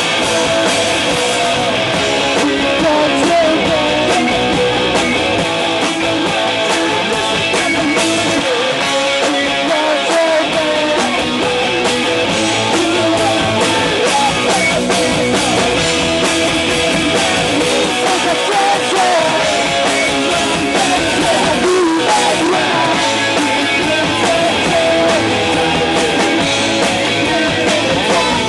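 Punk rock band music with electric guitar, played loud and steady throughout.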